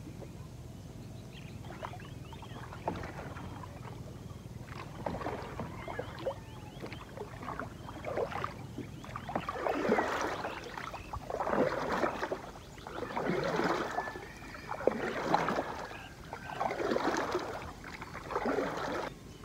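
Paddle strokes in lake water beside a bamboo raft: a rhythmic splash and swirl about every second and a half, faint at first and loudest in the second half.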